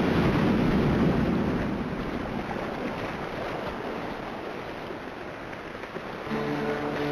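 A steady rushing noise with a low rumble, loudest in the first couple of seconds and then slowly fading. Music with held notes comes in about six seconds in.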